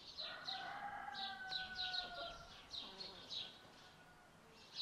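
Small birds chirping in quick repeated high notes, about three a second. Near the start a rooster crows once, a single held call of about two seconds.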